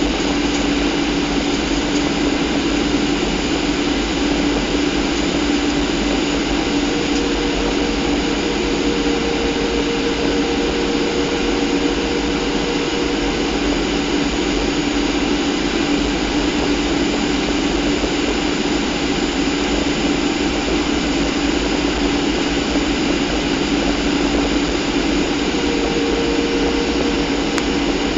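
Boeing 737 cabin noise: the CFM56 turbofan engines run at steady power on approach, a constant rush with a steady hum in it and a fainter higher tone that comes and goes twice.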